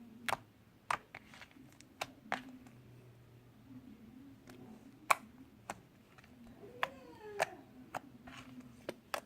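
Sticky clear-glue slime being stirred and worked by hand, giving sharp irregular pops and clicks, roughly one every half second to second.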